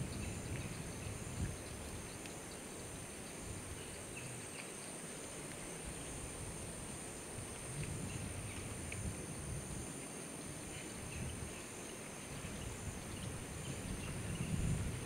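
Steady outdoor insect chorus: a high, even drone with a faint pulsing band, over a low uneven rumble, with a few faint high chirps here and there.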